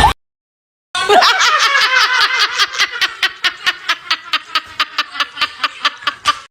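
Meme laughing sound effect: a long run of quick, evenly spaced snickering laughs, about five a second, starting about a second in and lasting some five seconds.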